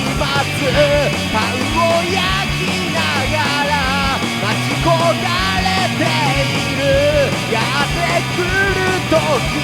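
Punk-rock band instrumental with no vocals: electric guitar lines bending in pitch over steady bass and drums.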